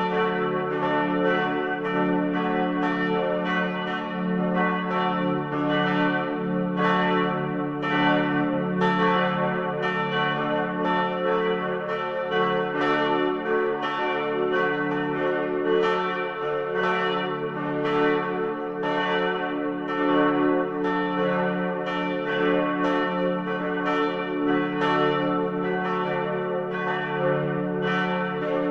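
Church bells ringing continuously, several bells struck one after another several times a second, their tones overlapping and ringing on.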